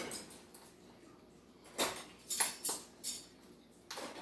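A few short clinks and knocks of kitchen utensils and dishes being handled while vegetable oil is measured out, starting a little under two seconds in.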